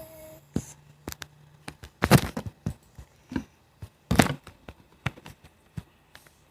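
Very sticky slime being worked and pulled apart by hand: scattered small clicks with two louder tearing sounds, about two and four seconds in.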